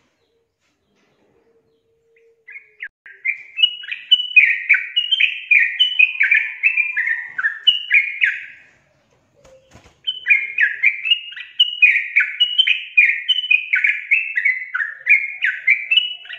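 Yellow-vented bulbul (trucukan) singing: two runs of short, quick-fire notes, each about six seconds long, with a short pause between them. A brief knock falls in the pause.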